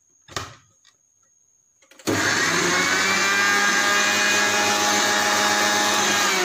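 Panasonic mixer grinder starting up about two seconds in. Its motor then runs at a steady high speed, blending peeled chikoo with sugar in the large steel jar. A short knock from the jar being handled comes just before.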